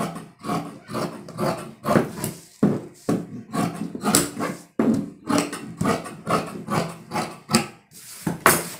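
Long tailor's shears cutting through several layers of folded dress fabric, a crisp snip about twice a second as the blades close through the cloth.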